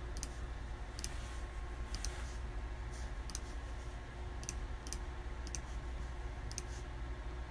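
Sparse, sharp clicks, singly and in quick pairs, about one every second, over a steady low hum, as of keys being pressed while a tally is counted up.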